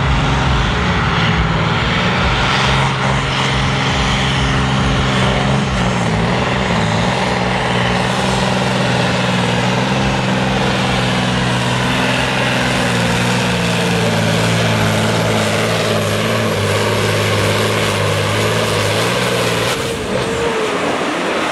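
Pulling truck's diesel engine at full load, hauling a weight-transfer sled down the track: a loud, steady drone with a faint rising whistle above it. The engine note drops off suddenly about 20 seconds in, near the end of the pull.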